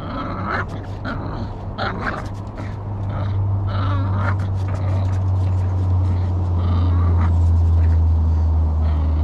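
Shorty Bull growling low and steadily as it hangs from a spring pole and tugs; the growl grows louder about three seconds in.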